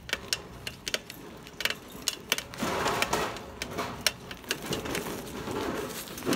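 Bicycle rattling and clicking as it rides over a rough gravel and dirt path. A rush of tyre noise on the loose ground grows louder from about two and a half seconds in.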